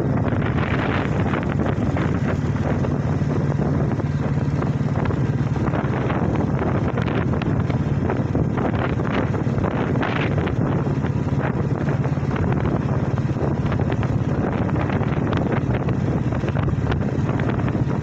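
Wind rushing over the microphone of a moving motorcycle, with the bike's engine humming steadily underneath.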